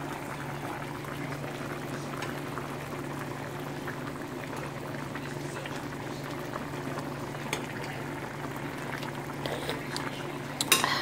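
A pan of sardine and vegetable stew bubbling steadily at a boil, over a steady low hum. A few sharp clicks sound near the end.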